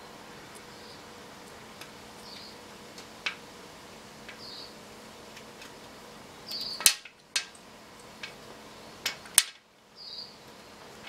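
Sharp clicks and taps of a small metal probe against a glass tabletop while a spider egg sac is picked open, scattered through, with the two loudest about seven and nine and a half seconds in.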